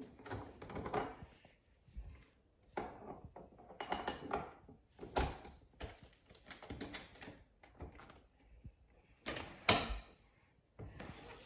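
Irregular knocks and clicks in a small room, a few at a time, with one louder knock about ten seconds in.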